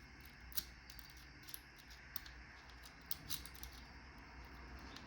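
Faint, irregular small metal clicks and ticks of a lock pick and tension wrench working the pins inside a Master 141 padlock.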